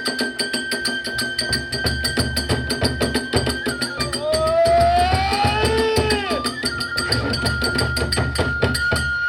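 Kagura hayashi ensemble playing: a bamboo flute holds long high notes, sliding through a phrase about halfway through, over fast, even strokes of small hand cymbals and the beat of a large drum.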